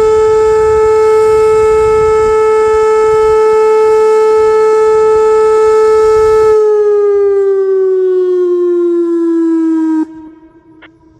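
Whelen WPS-2809 electronic outdoor warning siren sounding a loud steady tone of about 435 Hz. About six and a half seconds in its pitch slides steadily downward, and about ten seconds in it cuts off sharply as the test ends.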